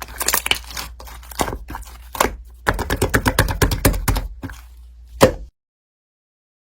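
A run of sharp taps and knocks that quickens into a rapid patter of several strikes a second, ending with one loud knock before the sound cuts off suddenly.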